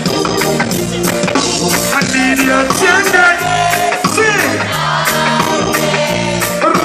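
Live reggae band music: a repeating bass line and drums under a dense band sound, with singing gliding over it in the middle.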